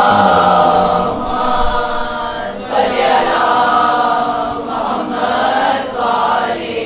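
Devotional vocal chanting in the background: long, drawn-out sung phrases whose pitch wavers, breaking every second or two.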